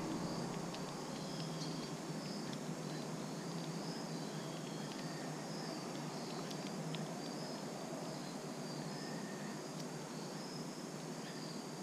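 Crickets chirping in a steady repeating rhythm, with a few faint clicks.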